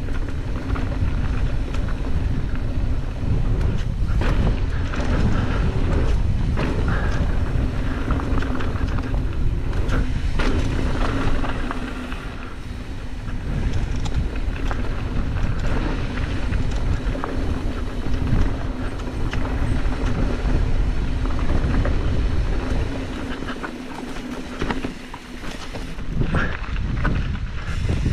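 Mountain bike ride on a dirt trail heard from a camera on the bike or rider: wind rushing over the microphone, knobby tyres rolling over dirt and loose stones, and the bike rattling and knocking over bumps, easing off briefly twice.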